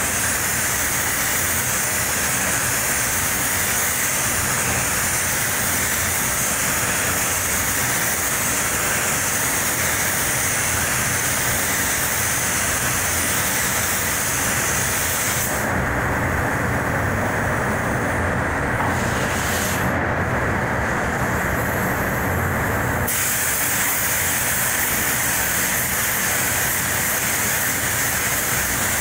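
Steady compressed-air hiss of a paint spray gun laying down clear coat, over the rush of the spray booth's air. About halfway through, the high part of the hiss drops away for roughly seven seconds, coming back briefly once, then resumes.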